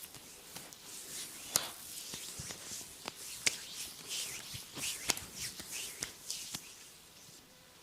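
Hands working over skin in a massage: a soft rubbing hiss broken by several sharp clicks or slaps at uneven spacing, the loudest about one and a half and three and a half seconds in.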